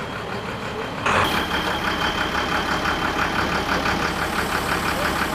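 A box truck's diesel engine running as the truck moves slowly. About a second in it becomes much louder and close, with a fast, even clatter and a thin high whine.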